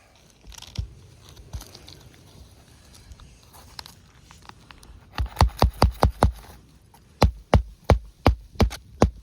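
Hammer blows on asphalt roof shingles: two quick runs of sharp knocks, about three a second, starting about five seconds in with a short pause between them.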